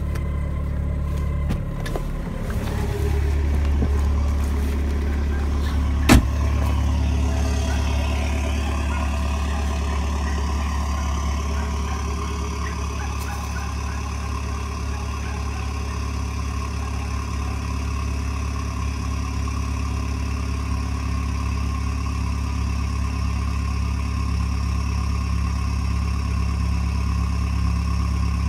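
BMW E46 Compact's 2.0-litre four-cylinder diesel (204D4) idling steadily while warming up after a cold start in deep frost. A single sharp thump comes about six seconds in.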